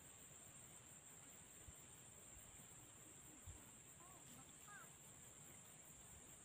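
Near silence with a faint, steady high-pitched insect drone, and two faint short chirps about four seconds in.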